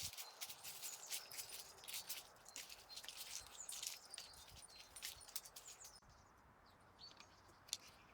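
Dry leaves and twigs rustling and crackling while the garden is being cleared. Dense, crisp clicking for about six seconds, then sparser, with one sharp click near the end.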